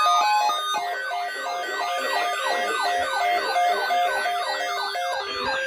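Electronic siren-like alarm with layered, rapidly repeating falling pitch sweeps a few times a second. Stepped beeping tones lead into it at the start.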